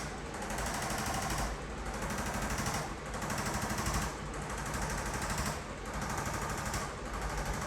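Handheld electric percussion tool hammering rapidly against the body, a fast machine-like pulsing that comes in runs of about a second to a second and a half with brief dips as it is moved.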